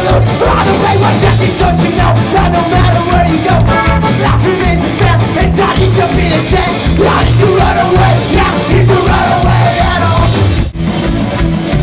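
Live rock band playing loudly, with a steady drum beat, guitar and a singer. The sound drops out for an instant near the end.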